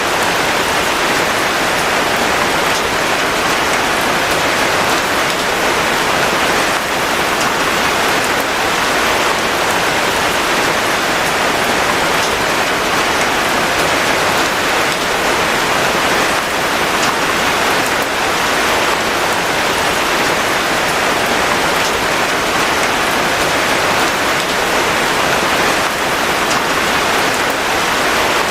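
Steady, heavy rain falling and pattering on surfaces, an even hiss of countless drops.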